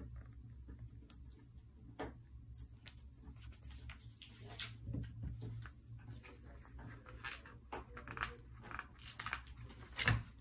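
Light scratches, taps and rustles of a pen on notebook paper and of sticker sheets being handled, irregular, with a sharper tap near the end, over a low steady hum.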